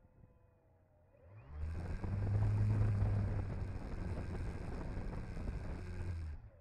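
The engine of a TopFlite Cessna Skylane radio-controlled scale model run up on the ground: it rises to a steady high speed about a second and a half in, holds for about five seconds, then drops back sharply near the end.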